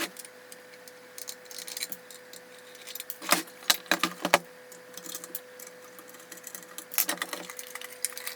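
Scattered metallic clicks and clinks as a small homebuilt steel-cased valve transceiver is handled and opened. They come in two clusters, one in the middle and one near the end.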